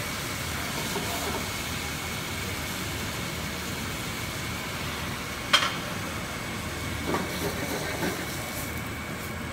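Steady hiss of a hot pan of escovitch vegetables and white vinegar cooking on a gas burner, with one sharp click about five and a half seconds in.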